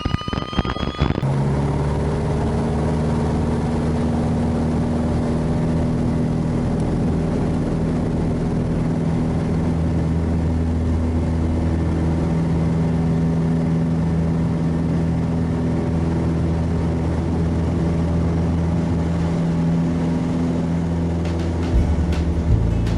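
Piper Cherokee's single piston engine and propeller running steadily at high power on the takeoff and climb-out. The pitch rises in the first second, then the engine holds an even, unchanging drone.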